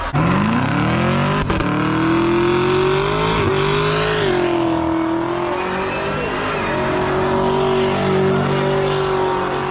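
Chevrolet Camaro engine revving up sharply, then held at high revs while the rear tyres spin and squeal in a smoky burnout donut.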